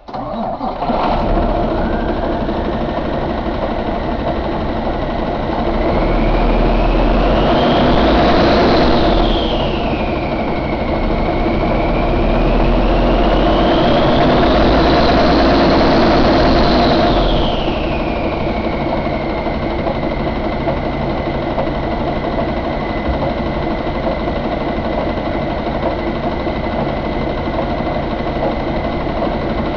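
Cummins ISX15 inline-six diesel truck engine running, revved up twice for several seconds each and then settling back to a steady idle. A high whine rises and falls with each rev and holds one steady pitch at idle.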